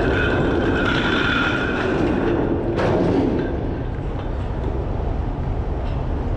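Steady low rumble of a tug's heavy machinery as the towing wire is taken up under tension, with a high whine over the first two and a half seconds and a single sharp knock about three seconds in.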